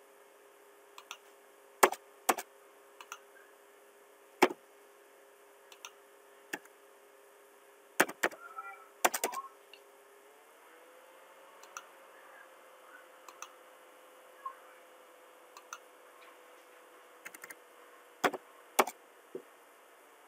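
Computer mouse clicks and keyboard keystrokes, sharp and spaced out, with a quick run of keys about eight to nine seconds in as the TRIM command is typed and entered. A faint steady hum runs underneath and shifts slightly in pitch about ten seconds in.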